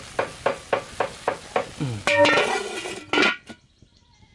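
Chopsticks stirring freshwater mussels in a boiling pot, the shells clinking about four times a second. About two seconds in, a louder pitched sound takes over for about a second, then it goes quiet.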